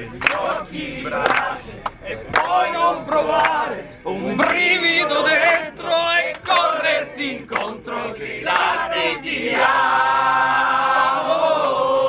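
A group of men singing and chanting together, ending in one long held note near the end.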